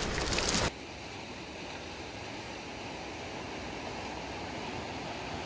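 Steady wash of sea surf. It is preceded by a louder stretch of crackling noise that stops abruptly under a second in.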